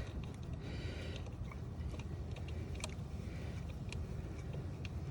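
A few light clicks and handling noise as a loosened T40 Torx coil-pack bolt is taken out by hand, over a steady low rumble.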